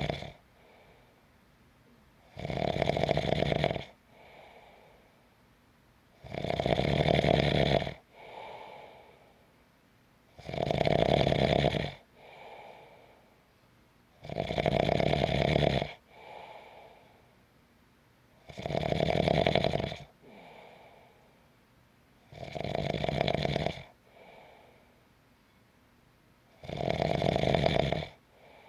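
A person snoring steadily in sleep, with a loud snore about every four seconds, each followed by a softer breath.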